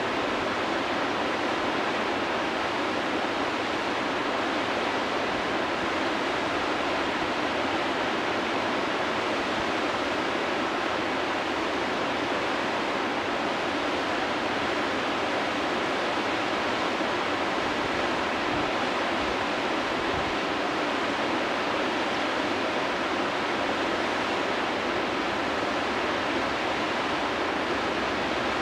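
Whitewater rapids rushing steadily: a river's standing wave and surrounding rapids pouring over rocks, an even unbroken roar of water.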